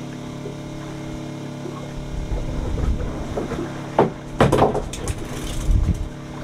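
Boat engine running with a steady hum, with a few sharp knocks against the boat about four to five seconds in and once more near six seconds.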